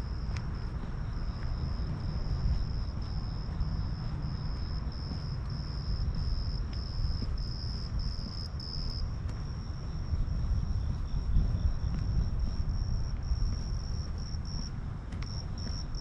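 An insect calls in a high-pitched trill, pulsing at about two beats a second with a brief break near the end, over a steady low outdoor rumble.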